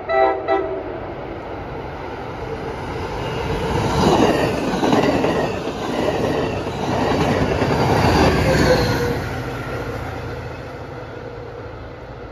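The last short blasts of a multi-note train horn, over within the first half second, then a push-pull passenger train passing close by: wheels clattering on the rails, loudest twice, about four and eight seconds in as the cars and the rear locomotive go past, then fading as it moves away.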